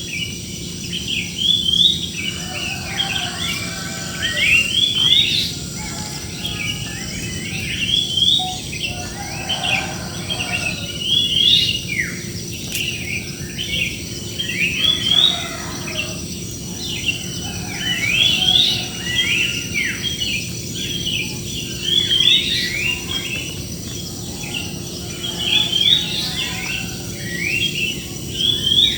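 A flock of birds chirping and singing together in a large tree, many quick overlapping calls that swell in bouts every few seconds, over a steady high insect-like buzz and a low hum.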